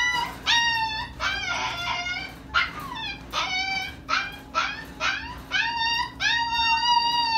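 Four-week-old puppies whining and crying: a quick series of about a dozen short, high whines, some overlapping, with one longer drawn-out whine near the end.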